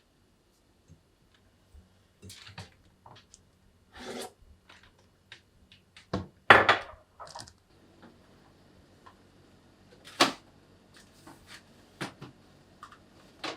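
Scattered knocks, rubs and rustles of things being handled and set down, irregular and of uneven loudness. The loudest comes about six and a half seconds in and another about ten seconds in.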